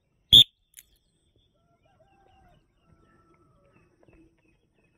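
A single short, loud whistle blast about a third of a second in: a coach's start signal for a hill sprint.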